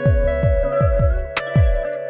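Background music with a steady beat: a deep kick drum about twice a second, with short ticking hi-hats over held chords.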